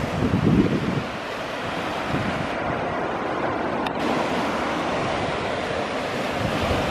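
Surf breaking and washing over a rocky shore, a steady wash of sea noise. Wind buffets the microphone, most strongly in the first second.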